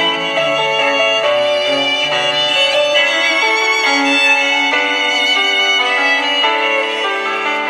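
Instrumental music: a violin playing a melody of held notes over lower accompanying notes.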